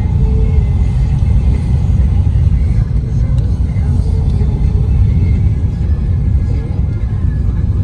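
Steady low road rumble inside a moving car, heard from the cabin.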